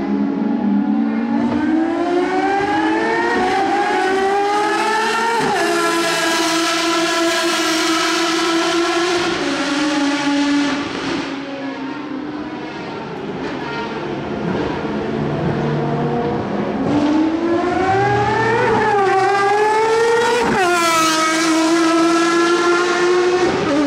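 Ferrari FXX's 6.3-litre V12 under hard acceleration, revs climbing and then dropping sharply at an upshift about five seconds in. It eases off and goes quieter around twelve seconds, then climbs again through two quick upshifts near the end.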